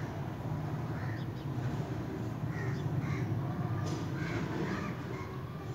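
Short bird calls repeating every half second to a second, over a steady low hum.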